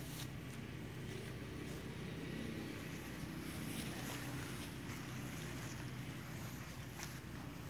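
A steady low hum with faint rustles and a sharp click about seven seconds in.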